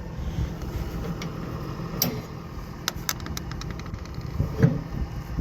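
A vehicle engine running steadily with a low rumble, with a quick run of sharp clicks about two to three seconds in and a single knock near the end.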